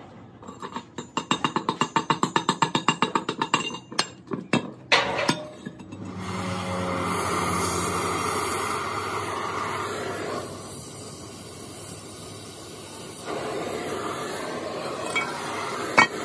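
Fast metal-on-metal tapping, about six strikes a second for three or four seconds, as a hand tool knocks at a fresh weld on steel pipe. Then an oxy-acetylene torch flame hissing steadily, its sound shifting twice as the gas is adjusted, with one sharp clink near the end.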